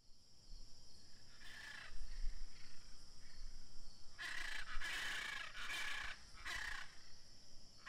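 Countryside ambience: a few separate bird calls over a steady high hiss.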